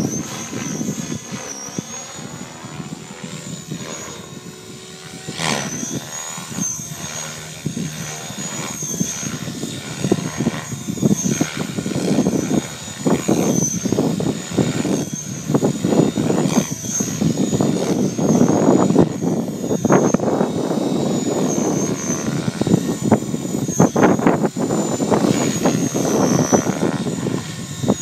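Align T-Rex 550 electric RC helicopter flying manoeuvres: its rotor blades whoosh and chop in pulses over a thin high motor whine that dips and wavers in pitch. It grows louder from about a third of the way in as the helicopter comes lower and nearer.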